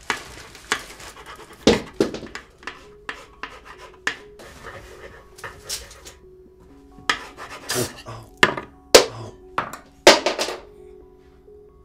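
Irregular kitchen clatter: sharp knocks and clinks of utensils and dishes on a counter, the loudest about two, nine and ten seconds in. A low held musical drone comes in about three seconds in.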